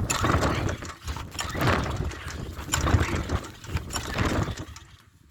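Small single-cylinder pressure-washer engine sputtering and surging unevenly, then dying away about five seconds in. It is stalling on the ATF and junk fuel it has been fed, or running out of gas.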